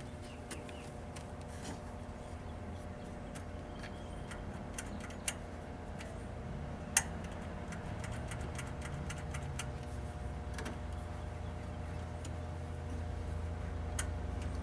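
Irregular light clicks and taps of hand tools on metal, with one sharper click about seven seconds in, over a steady low hum.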